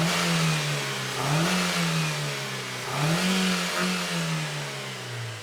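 2002 Ford Focus 1.4 petrol four-cylinder engine being revved, rising twice and sinking back toward idle near the end. It is running on four new spark plugs, fitted to cure a misfire on cylinder 4, and sounds a million times better.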